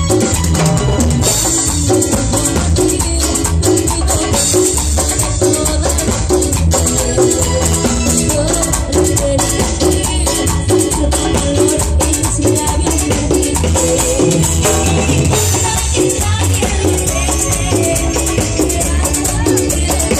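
A live Latin dance orchestra playing an instrumental passage, with a shaken rattle and drums keeping a steady dance rhythm over the bass.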